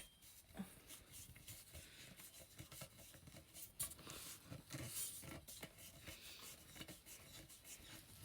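Faint handling sounds of metal ring light stand poles being screwed together: scattered light clicks and short rubbing scrapes.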